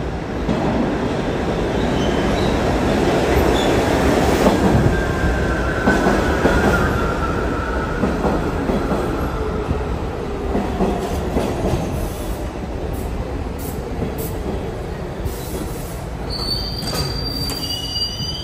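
R68 subway cars pulling into an underground station, with a loud rumble of wheels on rail that is strongest in the first seven seconds. A wheel squeal sounds about six seconds in. Higher-pitched squeals come near the end.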